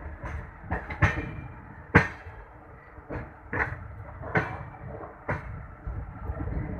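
Train wheels clanking over rail joints and points under a low rolling rumble, heard from a coach's open doorway: about ten sharp, irregular knocks, the loudest about two seconds in.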